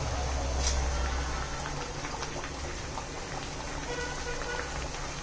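Sweet pumpkin puris (gharge) deep-frying in hot oil in a kadhai on medium heat: steady sizzling and bubbling, with many small crackles.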